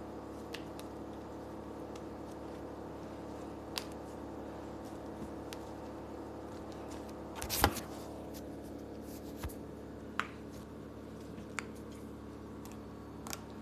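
Thick cream cheese slime (slime mixed with lotion and cornstarch) being stretched and handled: scattered soft sticky clicks and pops, with one louder squish about seven and a half seconds in, over a steady low hum.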